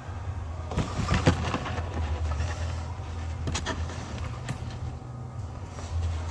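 A few sharp clanks and knocks, one about a second in, a pair around three and a half seconds and another soon after, over a steady low hum.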